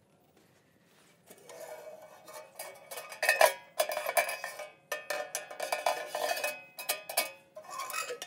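Stainless steel G-Stove camping oven being handled: its wire rack rattles and clinks against the metal oven body as it is moved, and the door and latch are worked near the end. A string of short metallic clanks and rattles, the sharpest about three seconds in.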